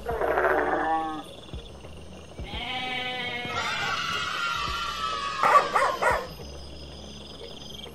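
Sheep and goats bleating: a short bleat at the start, then another about two and a half seconds in, followed by a longer, higher bleat that ends about six seconds in.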